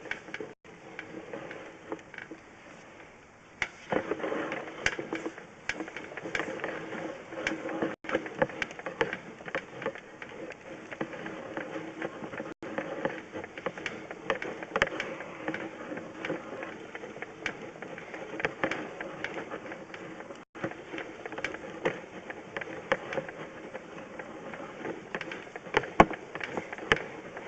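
Sewer inspection camera being pushed along the sewer line: irregular clicking and rattling over a steady hum, starting a few seconds in.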